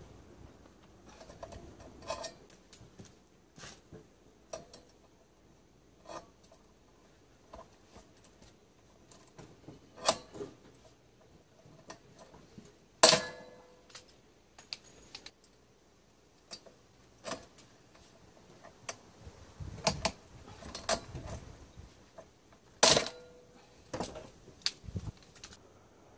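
Scattered clinks and knocks of small metal parts being handled, with two louder strikes, about 13 and 23 seconds in, that ring briefly.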